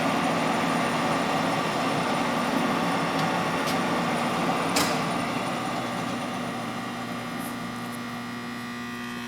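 Leblond servo shift lathe running, its half nuts engaged so the lead screw drives the carriage: a steady whir of the headstock gearing and 7.5 hp motor with a hum, and a single sharp click about halfway through. The sound eases off a little in the second half.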